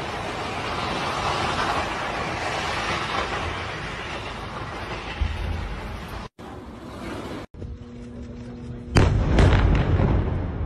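Air-strike explosion on a high-rise building: a sudden loud blast about nine seconds in, followed by a few more sharp bangs. Before it, a steady rushing noise runs for about six seconds and then cuts off.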